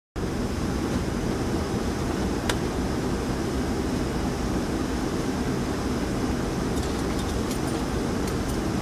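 Steady low mechanical rumble and hum, like ventilation or engine noise. There is a single sharp click about two and a half seconds in and a few light ticks near the end.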